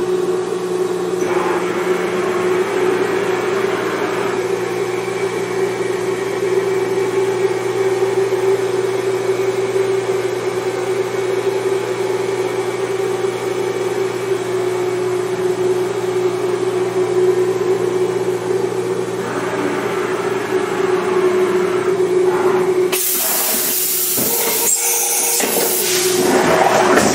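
Mori Seiki NH5000/40 CNC horizontal machining center running under power with a steady mechanical whine over a hum. About 23 seconds in, a louder rushing, hissing noise joins for a few seconds.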